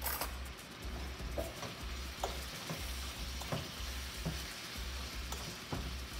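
Thin beef steak strips and onions in vinaigrette sizzling in a stainless steel skillet as they are stirred with a fork, the fork clicking against the pan several times.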